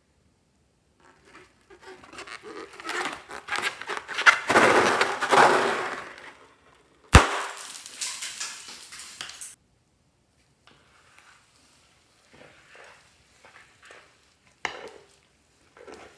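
Crackling, crinkling handling noise that builds over several seconds, a single sharp snap about seven seconds in, then a few faint rustles.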